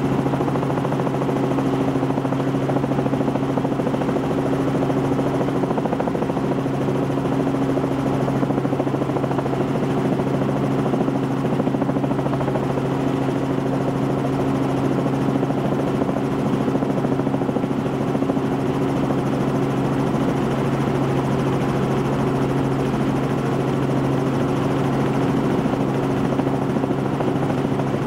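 Helicopter engine and rotor noise heard from inside the cockpit: a steady, loud drone with a strong low hum.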